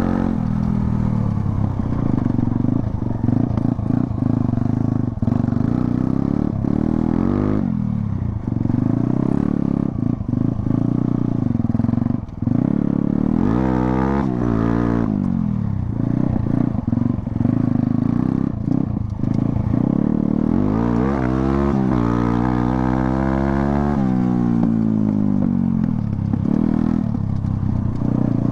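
Modified TVS Apache RTR 160's single-cylinder engine running under load as the dirt bike is ridden off-road, the pitch climbing and falling with the throttle, most plainly in two long sweeps about halfway through and again a few seconds later.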